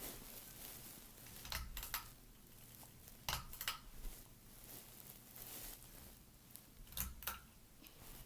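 Hunter Augusta ceiling fan running in reverse with a faint steady hum. Three pairs of short rustling clicks come through over it.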